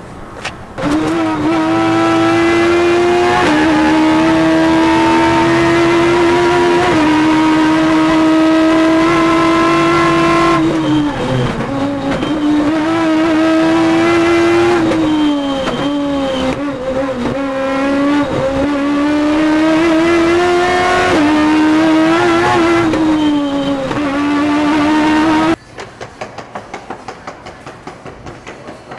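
Toyota 4A-GE four-cylinder race engine in a Starlet, screaming at very high revs near 11,000 rpm. The pitch holds high, drops briefly and climbs again several times as it shifts through the gears. It cuts off suddenly near the end, leaving a quieter rolling clatter of suitcase wheels.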